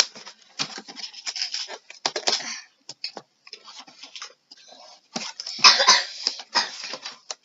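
Cardboard and plastic packaging being handled: irregular rustling and scraping, loudest about six seconds in.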